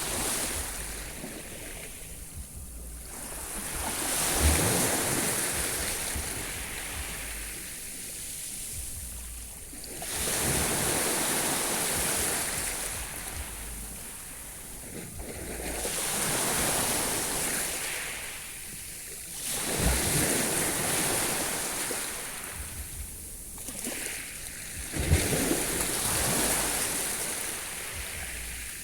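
Sea waves washing onto the shore, the surf swelling and falling back about every five or six seconds. A low rumble of wind buffets the microphone at times.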